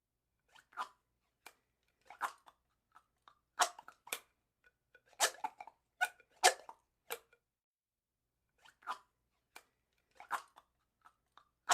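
Drinking straw squeaking in about a dozen short, separate squeaks at irregular intervals, with gaps of up to about a second and a half.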